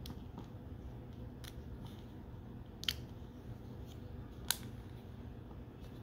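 Small hard-plastic toy parts clicking as a cage accessory is fitted and snapped together: a few light clicks, with two sharper clicks about three and four and a half seconds in.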